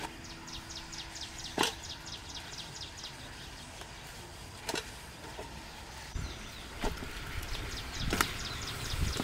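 A few sharp knocks as whole freshwater fish are set into an aluminium cooking pot, over high chirping that repeats about four times a second, in two spells: at the start and again near the end.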